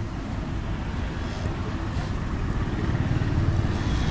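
A motor vehicle's engine rumbles in the street, growing steadily louder as it approaches.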